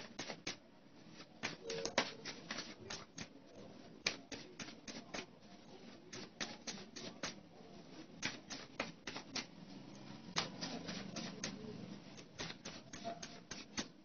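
Tarot cards being shuffled by hand: quick, irregular clicks and taps in clusters of several a second, with short pauses between clusters.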